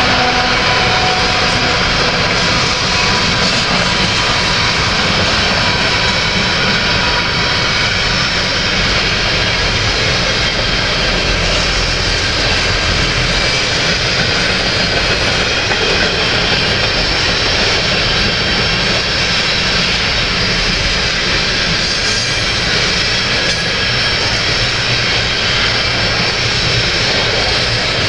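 Canadian Pacific freight train's covered hopper cars rolling past: a loud, steady rumble of steel wheels on the rails.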